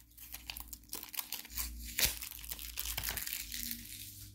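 Small product packaging being crinkled and torn open by hand: a run of irregular crackles and rustles, with one sharper snap about two seconds in.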